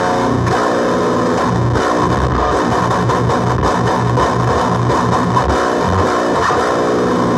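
Electric guitar played loud through a JHS Bonsai overdrive pedal, switched on, into a guitar amplifier: heavily distorted chords and low notes played without a break.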